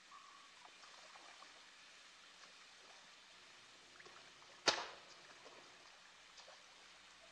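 Faint room noise with one sharp knock a little past halfway, dying away over about half a second.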